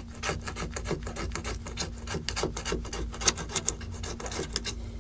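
A pick scraping old screen adhesive off a Samsung Galaxy S3's frame in quick, repeated strokes that stop shortly before the end.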